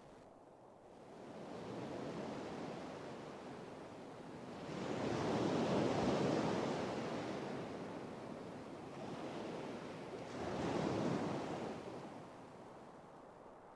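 Ocean waves breaking and washing up the shore in surges: a small one soon after the start, the biggest around the middle, and another a few seconds later.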